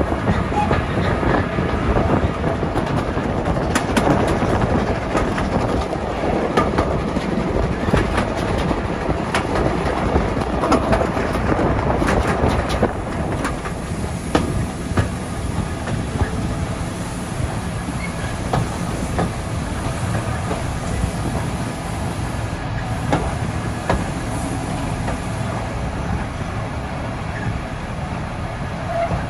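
Heritage railway carriages running on the rails, heard from an open carriage window: a steady rumble of wheels with irregular clicks over rail joints, easing slightly about halfway through.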